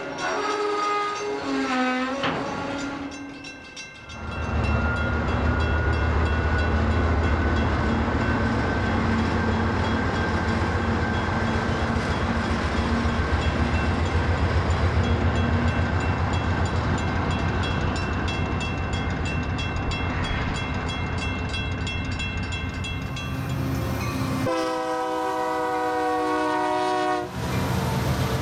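Union Pacific freight train passing: railcar wheels rolling on the rails, then a diesel locomotive's engine rumbling loudly as it goes by. Near the end a locomotive's multi-chime air horn sounds for about three seconds.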